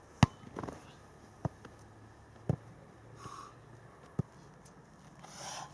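A football being struck: one sharp, loud smack about a quarter-second in, then three softer thuds spread over the next four seconds.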